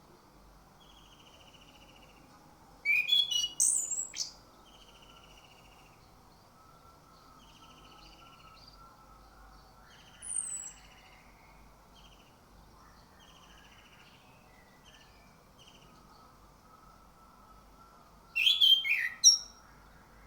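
Orange-headed thrush singing: two loud, rapid, varied phrases, one about three seconds in and one near the end, with a short high down-slurred note around the middle. Fainter buzzy, trilled notes repeat throughout.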